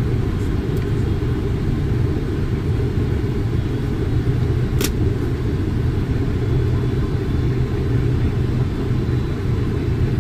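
Steady flight-deck noise of a Boeing 747 in flight: a low, even rush of airflow and engine noise that does not change. A single sharp click about five seconds in.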